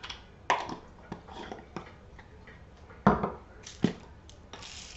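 Spice containers being handled and set down on a kitchen benchtop: scattered clicks and knocks, the loudest a thud about three seconds in.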